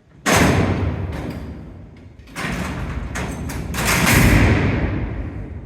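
A row of steel barred cell doors on a 1930s Stewart Iron Works mechanical locking system, worked from a gearbox, sliding and slamming shut. A loud clanging bang rings out and fades, then a clatter of knocks builds to a second, louder crash about four seconds in.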